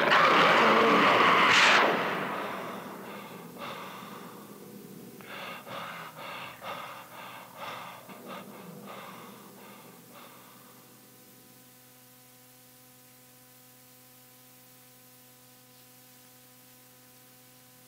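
Tape playback of an early-'90s industrial rock band's cassette demo. The loud band music stops about two seconds in and trails off into a run of short, irregular, fading sounds. From about eleven seconds only a steady low hum and tape hiss remain in the gap between tracks.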